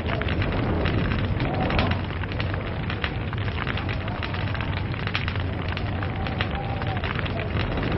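Log fire crackling: many irregular pops and snaps over a steady hiss and low rumble of burning wood.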